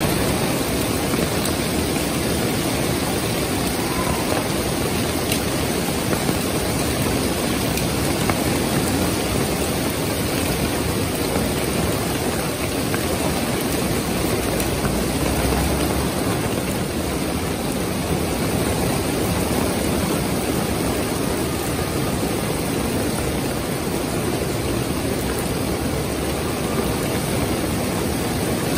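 Heavy rain pouring steadily onto a street and parked cars, an even hiss with no letup.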